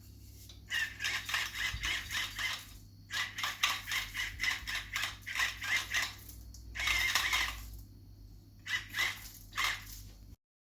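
Salt grinder being twisted over the ficelles: rapid rattling clicks, about eight a second, in four bouts with short pauses between them. The sound cuts off suddenly near the end.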